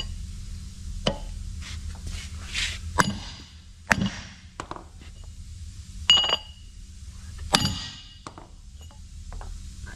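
Hammer blows on a steel driver seating a seal into the bore of a Caterpillar D9R equalizer bar: about half a dozen unevenly spaced metallic strikes, several with a short ring, the loudest about six seconds in.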